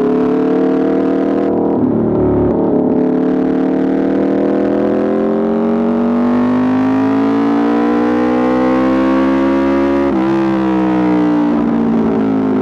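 Aprilia RSV4 RR's V4 engine breathing through an Austin Racing exhaust, pulling under load: its pitch climbs steadily for several seconds, then drops sharply about ten seconds in, as at an upshift.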